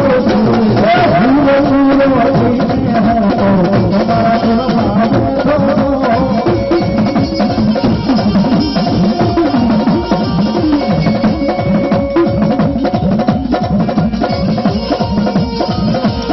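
Live Gujarati folk devotional music from a small ensemble: hand drums keep a brisk, steady rhythm under a sustained melody line.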